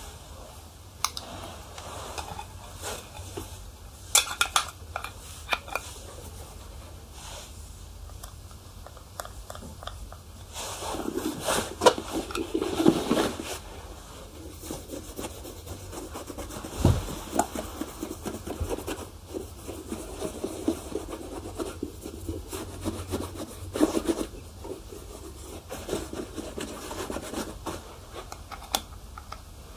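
Shoe being polished: uneven rubbing strokes with scattered small clicks and taps, loudest and busiest a little over a third of the way in.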